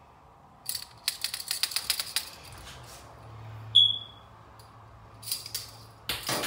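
Kitchen utensil clicking and tapping quickly against a bowl for about a second and a half, then one loud, short ringing clink past the middle and a few more taps near the end.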